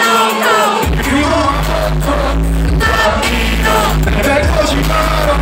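Live pop/hip-hop music over a concert PA: male vocals over a loud backing track with heavy bass. The bass drops out briefly at the start and comes back in about a second in.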